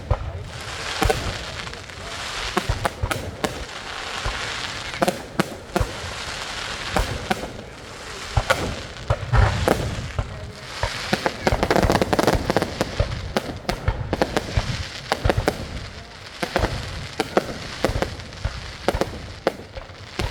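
Fireworks going off without a break: dense crackling with many sharp pops and bangs, busiest about halfway through.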